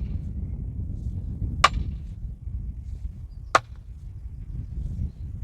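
Sledgehammer striking a fence post to drive it into the ground: sharp single blows about every two seconds, two in the middle and a third at the very end, over a low steady rumble.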